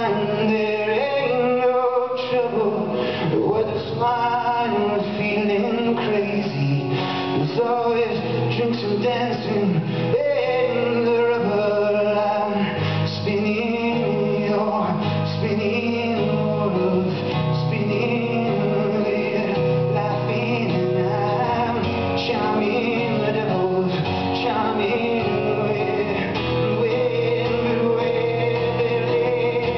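A man singing live to his own strummed acoustic guitar.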